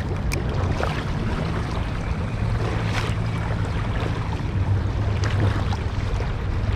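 Legs wading through river water, a steady sloshing and swishing of the current, with wind rumbling on the microphone.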